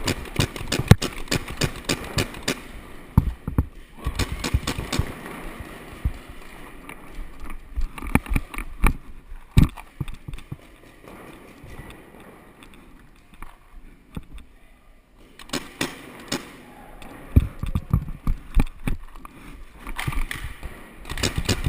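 Paintball markers firing in rapid strings of sharp pops, with quieter pauses between volleys, during a speedball game.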